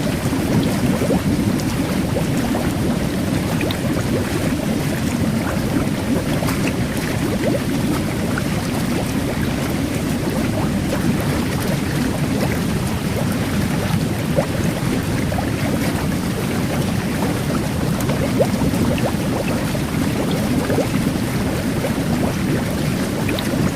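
Jet bath churning water steadily, with fine carbonated bubbles fizzing and ticking over the low rush.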